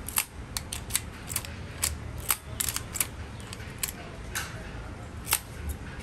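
Key being turned back and forth in a freshly repaired Honda City ignition lock cylinder, checking that the lock works. It makes a run of sharp metallic clicks, about two a second, thinning out near the end.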